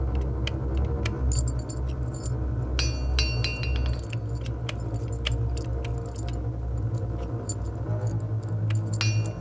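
Background music: a low steady drone under scattered high tinkling clinks, with a ringing chime-like cluster about three seconds in and again near the end.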